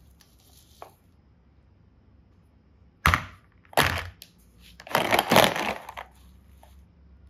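Hard plastic knocking and clattering as plastic diamond-shaped toy capsules are put into a plastic mesh basket. There is a sharp knock about three seconds in and another just under a second later, then a longer rattle of knocks about five seconds in.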